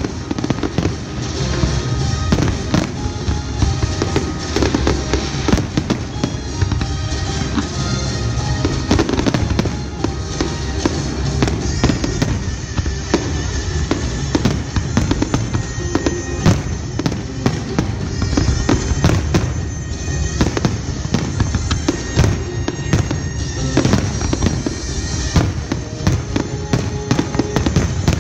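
Aerial firework shells bursting in rapid, continuous succession: a dense run of sharp bangs, with music playing alongside.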